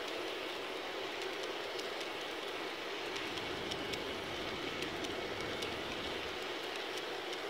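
Large-scale garden-railway model freight cars rolling past on outdoor track: a steady rolling noise of the wheels on the rails, with faint, irregular ticks.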